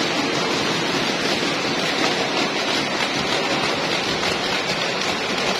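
Steady, even noisy din of a sports hall, with no distinct knocks, whistles or voices standing out.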